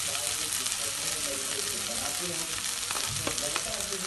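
Onion and potato masala sizzling steadily in a hot nonstick pan, with a few short clicks of the spoon against the pan about three seconds in.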